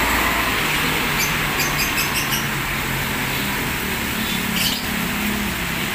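Steady rain on a flooded street with traffic passing through the water: engines of a bus and motorcycles humming by over the hiss of rain and wet tyres. A few short, high chirps come about a second or two in.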